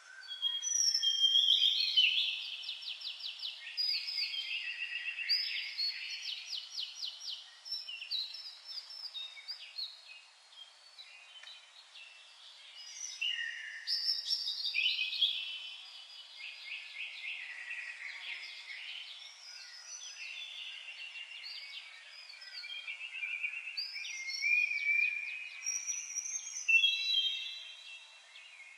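Several songbirds singing at once: dense, overlapping trills and quick warbled phrases, swelling loudest about a second in, around halfway and again near the end.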